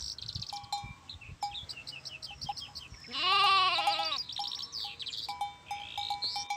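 A sheep or goat-like bleat: one loud, quavering call lasting about a second, about three seconds in. Around it, birds sing and chirp continuously, with quick high sweeps and short repeated notes.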